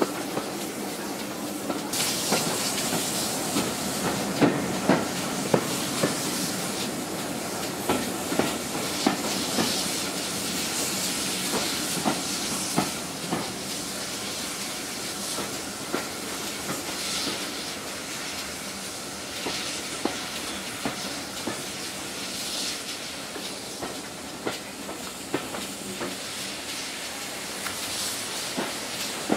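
Heritage railway train running along the line, its wheels clicking over rail joints under a steady rushing hiss. The clicks come thickly at first and thin out in the second half as the train runs slowly into a station.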